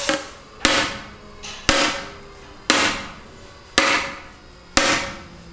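Claw hammer striking the tube of a Giant TCR carbon fibre road bike frame, about five hard blows roughly a second apart, each a sharp knock with a short ring. The carbon tube is still holding and has not yet cracked through.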